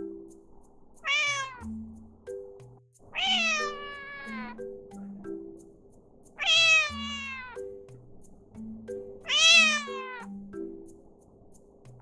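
Munchkin cat meowing four times, each meow starting high and sliding down in pitch, the second and third drawn out longer, over soft background music.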